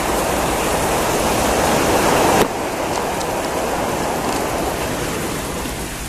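Steady rain falling, a continuous hiss that is louder for the first couple of seconds and then drops off abruptly.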